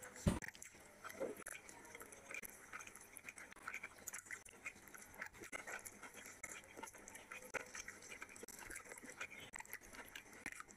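Fingers tearing and squishing curry-soaked mutton with rice and gravy, giving a run of small wet clicks and squelches, with chewing. There is a low thump just after the start.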